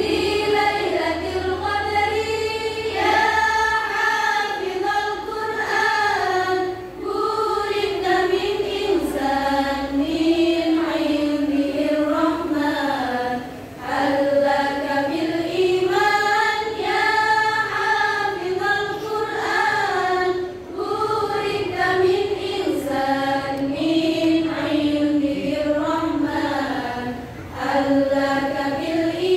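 A women's choir singing one melody together. The phrases are broken by short pauses about every six or seven seconds.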